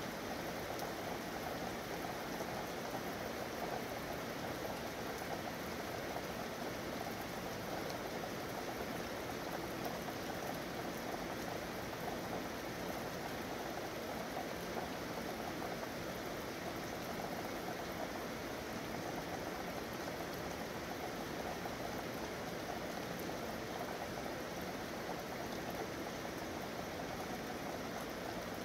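Steady city rain falling, an even, unbroken wash of sound with no single drops standing out.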